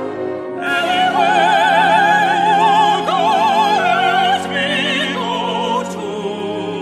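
Operatic music: a high soprano voice enters about half a second in, holding long notes with wide vibrato over a sustained orchestral accompaniment, and drops away near the end.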